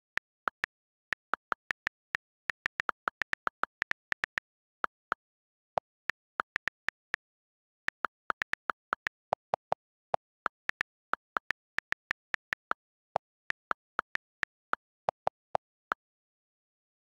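iPad on-screen keyboard key clicks as a line of text is typed: short, sharp ticks in irregular runs of a few per second, broken by brief pauses, with complete silence between them.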